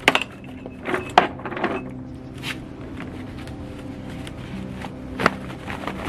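Plastic clicks and knocks from handling the parts of a Numatic Henry Wash vacuum, whose motor head is off the tub while a bag is fitted, so the machine is not running. There is a cluster of knocks in the first two seconds and one sharp knock about five seconds in, over a steady low hum.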